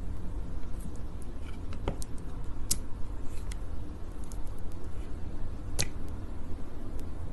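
Sticky honey sounds close to the microphone: scattered soft wet clicks and crackles, with a sharper click about six seconds in, over a low steady hum.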